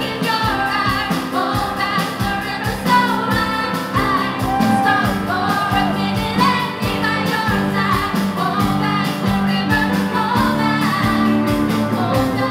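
Live pop-rock band playing: women singing over keyboard, electric guitar and a drum kit keeping a steady beat.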